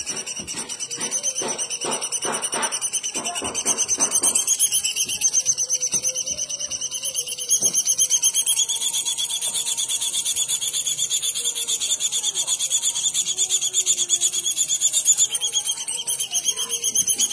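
A bird's continuous high, buzzing trill of very rapid pulses with no break. Its pitch steps up slightly twice, about four and eight seconds in.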